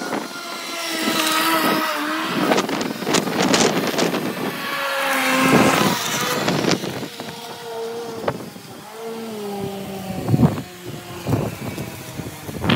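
String trimmer motor running, its pitch rising and falling as the throttle is worked, with sharp hits now and then from the cutting line striking the grass.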